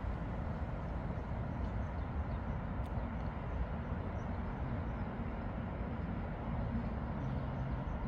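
Steady low rumble of outdoor background noise, with no music or speech.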